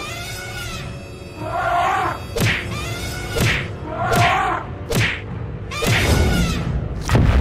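Cartoon fight sound effects for two woolly mammoths clashing tusks: four sharp whack-like hits, roughly a second apart, alternate with short pitched calls that rise and fall.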